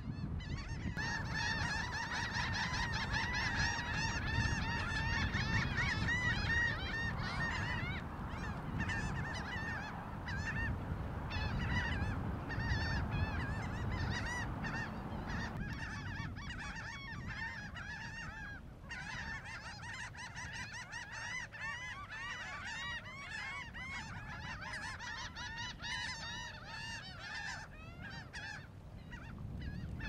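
A large flock of gulls calling, many overlapping repeated cries at once, busiest in the first half and thinning briefly about halfway through. A low rumble runs underneath.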